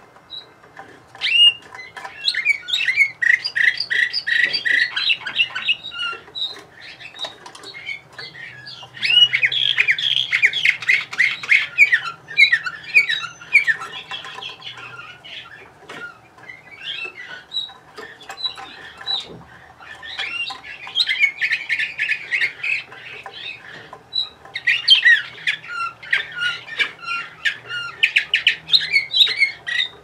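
Domestic canary singing: several long phrases of rapid trilled and rolling notes, with short chirps in the pauses between them.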